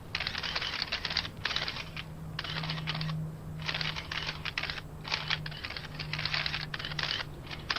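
Typing on a keyboard: fast clicking in bursts of under a second with short pauses between, over a steady low hum.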